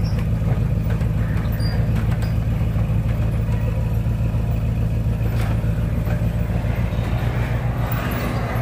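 Pickup truck engine idling steadily, just cold-started in sub-freezing weather, while an electric garage door opener raises the door.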